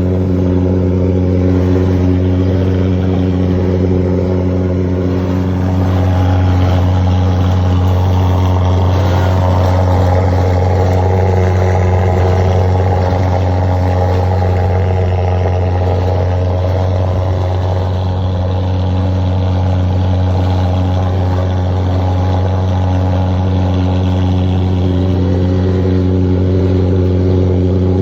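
Engine running steadily at a near-constant speed: a loud, even hum with a string of overtones that hardly changes in pitch.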